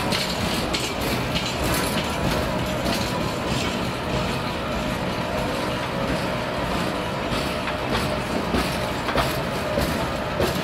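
Loaded freight wagons of a train rolling past: a steady rumble of wheels on rail with irregular clicks and clatter.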